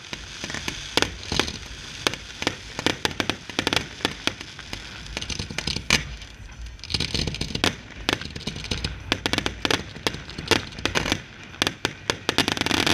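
Fireworks display: aerial shells bursting in quick, irregular succession, dozens of sharp bangs over a constant noisy haze, densest in the last second.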